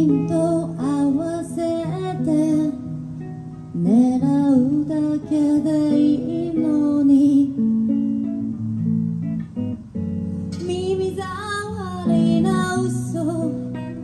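A woman singing into a microphone over guitar accompaniment, in three sung phrases with the guitar carrying on alone between them.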